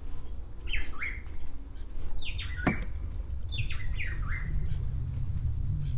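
Birds calling: three bursts of short, falling squawks, about a second and a half apart, over a steady low rumble. A single sharp knock sounds between the second and third bursts.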